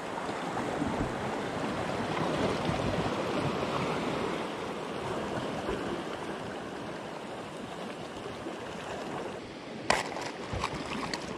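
Small waves washing and lapping against a rocky shoreline, a steady water wash. About ten seconds in, a sharp click and a few smaller clicks and rattles as a plastic lure box is handled and opened.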